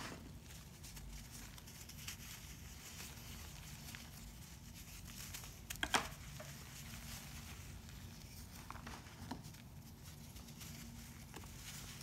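Hands crushing and crumbling chunks of layered, powdery baking soda: soft, gritty crunching with the rustle of powder, and a sharper, louder crunch about six seconds in.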